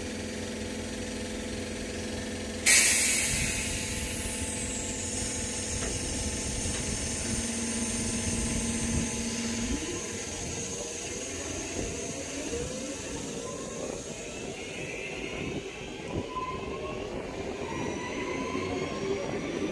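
Class 323 electric multiple unit starting away from the platform: a sudden loud hiss of air about three seconds in that fades out, then its traction equipment whining in several rising tones as it gathers speed.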